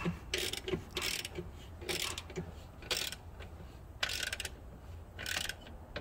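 Hand socket ratchet tightening the last bolt of a rear differential brace: short bursts of rapid pawl clicks, about one a second, as the handle is swung back between pulls.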